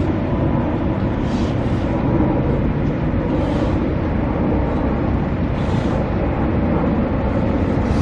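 Car driving along at speed: steady road and engine rumble, with a few brief hissing swells about two seconds apart.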